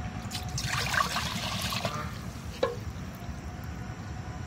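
Water heating toward a boil in a metal pot under a perforated steel steamer plate on a wood fire, giving a steady low rumble and hiss. A single light click about two and a half seconds in comes as dumplings are set down on the steel plate.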